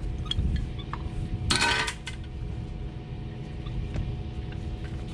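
Concrete pump truck running steadily with a low engine rumble and hum, with light metallic clinks and one short, loud rattling burst about a second and a half in.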